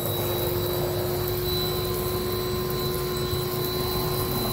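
Greenworks 1600 psi electric pressure washer running steadily while spraying detergent through its low-pressure soap setting: a steady motor-pump hum with a thin high whine over the hiss of the spray.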